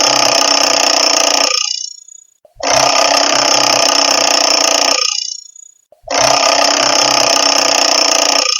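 Classic mechanical alarm clock ringing, its hammer rattling rapidly against the bells. It rings in bursts of about two and a half seconds with a pause of about a second between: the ringing stops about one and a half seconds in, starts again near three seconds, stops near five, and starts once more about six seconds in.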